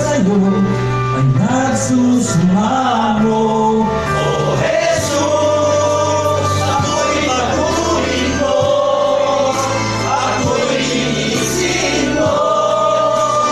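A small choir of men and women singing a gospel hymn together over instrumental accompaniment with a steady bass line.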